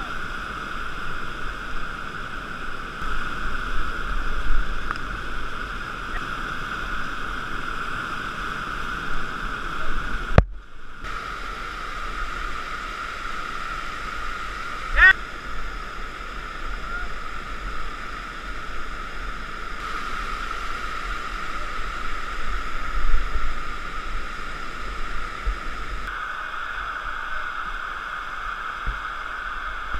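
Steady rush of white water pouring over and churning below a river weir, heard close from a kayak. The sound cuts out for a moment about ten seconds in, and a brief rising tone sounds about halfway through.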